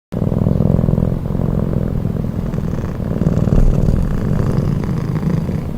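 Domestic cat purring steadily and loudly, close to the microphone: a low, fast-pulsing rumble.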